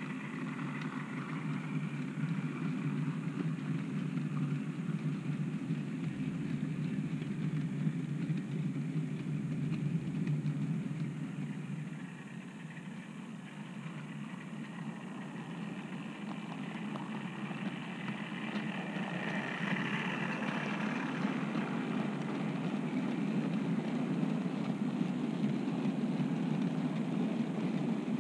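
OO gauge model train running along the track: a steady mechanical hum of motor and wheels. It drops away about twelve seconds in and grows louder again towards the end as the cattle wagons pass close by.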